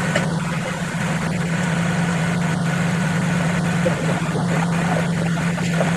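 Alfa Romeo 159 2.2 JTS idling with the air conditioning on and the electric cooling fan running, a steady hum with scattered small clicks over it.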